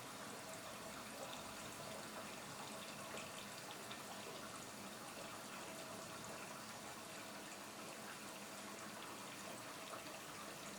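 Automatic washing machine filling with water: a steady, faint rush of water running into the drum.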